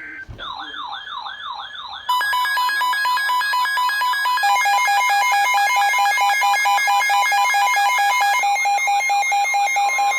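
Emergency weather alert alarms going off for a new severe thunderstorm warning: a rapidly warbling siren-like tone, then from about two seconds in several loud electronic alarms beeping rapidly over one another at different pitches.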